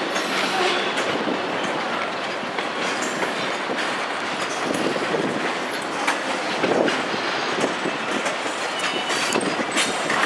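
Grain train's covered hopper cars rolling slowly past: a steady rumble of steel wheels on rail, with irregular clicks as wheels cross rail joints and faint traces of wheel squeal.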